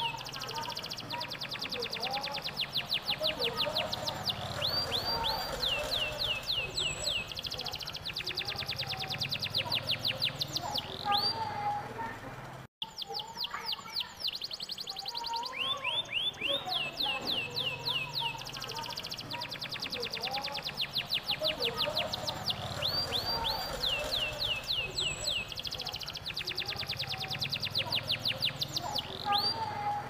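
Domestic canary singing a long song of fast trills: long runs of rapidly repeated sweeping notes (rolls), one after another. There is a brief dropout about 13 seconds in, then the song picks up again.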